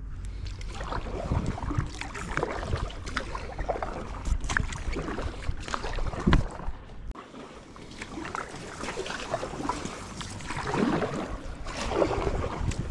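Inflatable kayak being paddled: the paddle blades dip and splash in the river water, with drips and trickles running off the blades. The strokes come in irregular spells, with a short lull a little after the middle.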